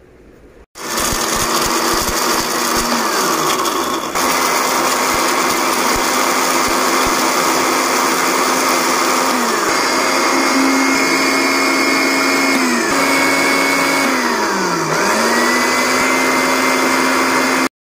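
Electric mixer-grinder motor dry-grinding roasted whole spices into garam masala powder. It starts abruptly about a second in and runs steadily, its pitch sagging and recovering a few times, most deeply near the end, before it cuts off.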